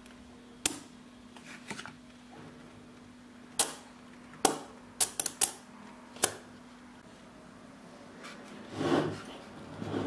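Small neodymium magnetic balls clicking sharply together as a block built of them is pressed and adjusted by hand: single clicks spread through the first six seconds, with a quick run of four about five seconds in. Near the end, a softer rubbing as the heavy magnet block is turned on the table.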